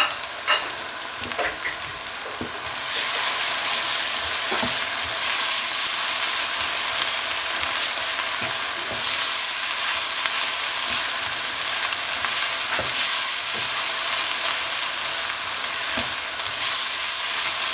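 Onion-tomato masala and freshly added ground spices sizzling in hot oil in a nonstick frying pan, being fried (bhuna) while a spatula stirs it. The sizzle is quieter, with a few clicks, for the first three seconds, then grows louder and steadier once the stirring starts.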